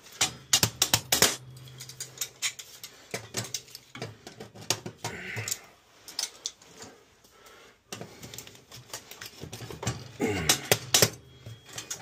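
Irregular clicks, knocks and clatter of metal hand tools being picked through in a tool bag and handled at the boiler's burners, coming in bunches with short pauses.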